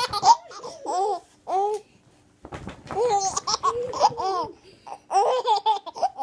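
Baby laughing in several short bouts of high-pitched laughs and coos, with brief pauses between them.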